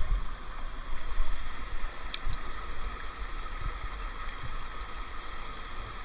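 Waterfall rushing steadily, with a single short metallic clink of rappelling hardware about two seconds in and a few low bumps near the start.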